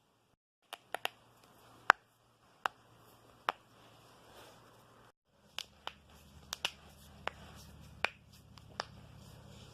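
Knuckles cracking close to the microphone: a string of about fourteen sharp, irregularly spaced pops, the loudest about two seconds in. There is a brief break about five seconds in where the looped recording cuts.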